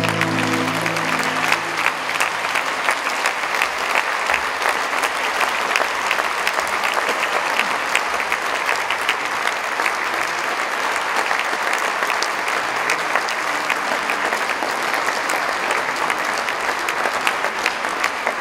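Audience applauding steadily, a dense even clapping, as the music's last held chord fades away about a second in.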